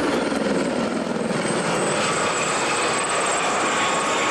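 Jet aircraft of a formation aerobatic display team flying over: a steady rushing jet engine noise with a thin high whine.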